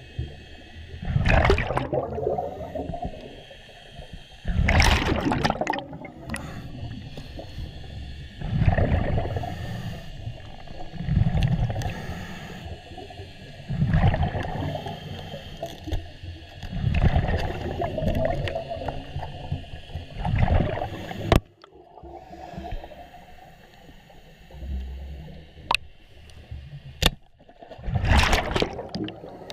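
Muffled underwater whooshing and gurgling of water, swelling about every three seconds, with three sharp clicks in the second half.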